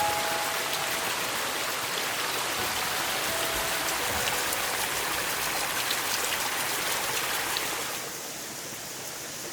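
Steady hiss of water, with fine pattering ticks, that drops in level and softens about eight seconds in.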